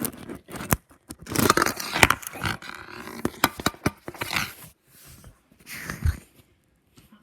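Handling noise from the recording device being moved and propped in place: close rustling, scraping and sharp clicks, irregular and thinning out towards the end.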